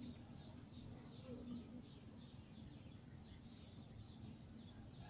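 Near silence, with faint bird chirps repeating softly in the background over a low steady hum.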